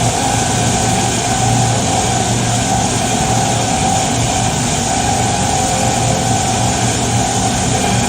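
An 18 kW mini diamond wire stone-cutting saw running steadily, its electric drive humming under an even mechanical noise.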